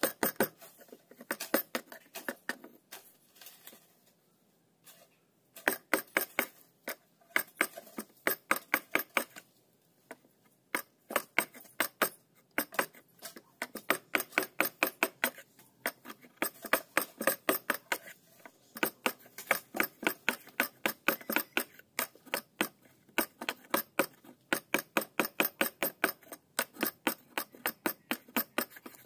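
Hand saw cutting down into a clamped block of wood, in runs of quick, regular back-and-forth rasping strokes, with short pauses about four seconds in and about ten seconds in.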